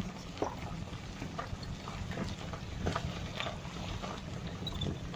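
Inside a car driving slowly: a steady low rumble of road and engine noise, with scattered irregular clicks and light knocks.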